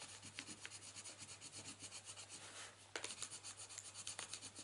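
Coloured pencil shading on paper: faint, rapid back-and-forth scratching strokes, with a short break a little past halfway.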